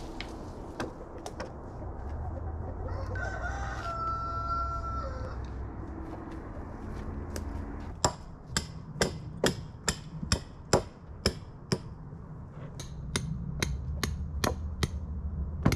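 A rooster crows once, a few seconds in, with a long call that drops in pitch at the end. Then come two runs of sharp hammer blows, about two a second with a short pause between them, as the PVC hoops are fastened to the wooden bottom plate of the run.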